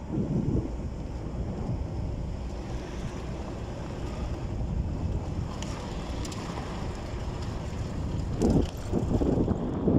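Wind buffeting the microphone as a steady low rumble, with stronger gusts just after the start and twice near the end.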